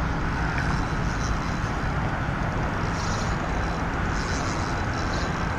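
Steady roar of road traffic on the bridge trestle overhead, with a few faint hissing patches about three and four and a half seconds in.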